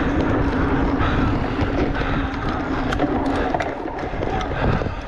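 Giant Reign E+ e-mountain bike ridden on a dirt trail: wind rumbling on the camera microphone and tyres and frame rattling over the ground, with a steady drive-motor hum.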